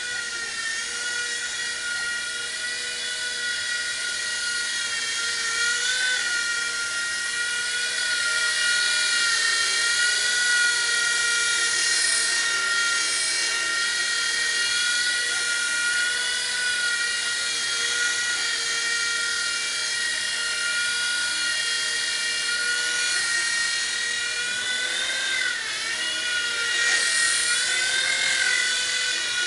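WLtoy V911 micro RC helicopter's small electric motor and rotor running with a high, steady whine, its pitch wavering slightly as the throttle changes, with quick dips and rises near the end.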